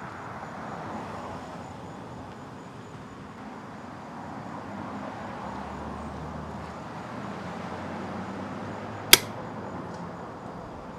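Steady background ambience, an even low rumble and hiss, with one sharp click about nine seconds in.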